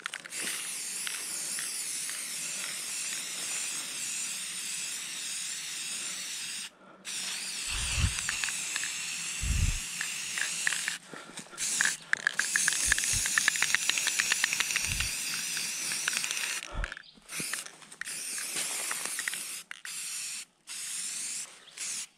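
Aerosol spray-paint can hissing in long bursts with short pauses between them as purple paint is sprayed onto a tree trunk. A few low thumps are heard along the way.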